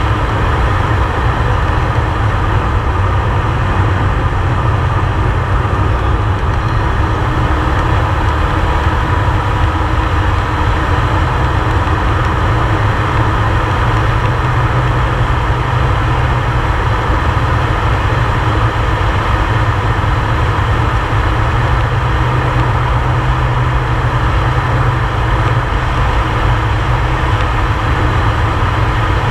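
Air Tractor 502XP's turboprop engine and propeller running steadily in flight, heard from inside the cockpit: a loud, deep, unchanging engine noise.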